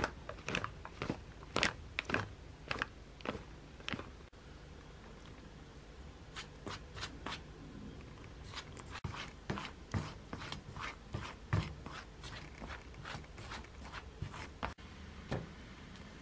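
Tempura batter being stirred with wooden chopsticks in a bowl: repeated light clicks and taps of the chopsticks against the bowl, two or three a second, with a short pause about four seconds in.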